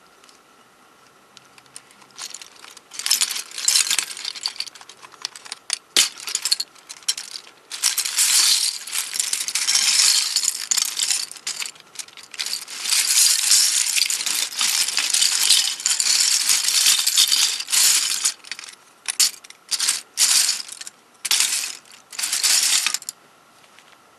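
Many small plastic pieces of a MoYu 13x13x13 cube clattering and rattling against one another in irregular bursts as they are handled, some stretches several seconds long.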